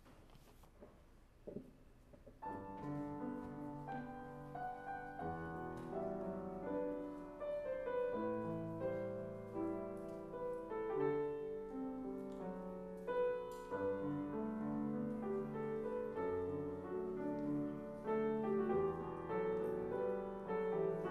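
Grand piano played solo, with sustained chords and a melody line; it starts about two and a half seconds in after a short quiet pause.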